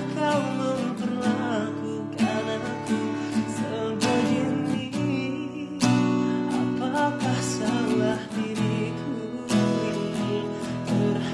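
A man singing a slow ballad while strumming an acoustic guitar, with the strums marked every couple of seconds.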